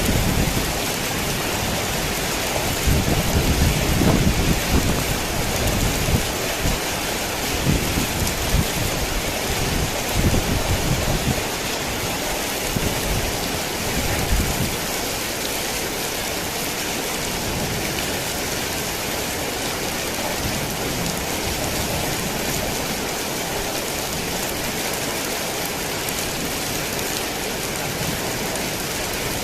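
Heavy rain falling in a steady, dense hiss. Low rumbles of thunder roll through the first half and die away about halfway through, leaving only the rain.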